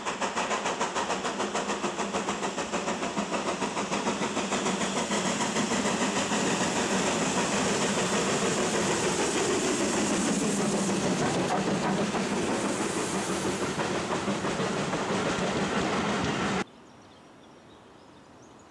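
Steam locomotive No. 43106, an LMS Ivatt Class 4MT 2-6-0, working a passenger train past at speed, its exhaust beating in a quick, even rhythm with the rumble of the coaches. The sound cuts off suddenly near the end.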